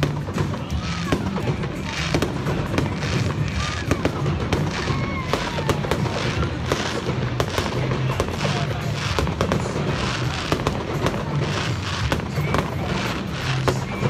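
Aerial fireworks going off in a continuous string of bangs and crackling pops, with a few short whistles among them.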